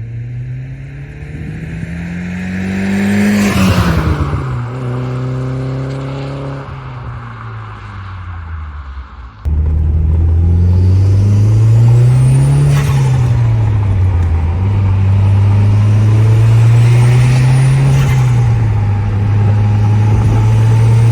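Audi TT's turbocharged four-cylinder revving and letting off: the revs climb and drop with a whoosh about three and a half seconds in, then, suddenly louder, the engine pulls up and lets off twice, around halfway and near the end, with a rising turbo whistle before the second let-off.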